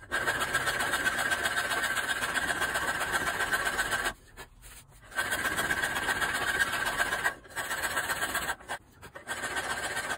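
Electric polishing machine running with a metal vise part pressed against it, a steady grinding hiss. It breaks off abruptly a few times, about four, seven and a half and nine seconds in, and starts again.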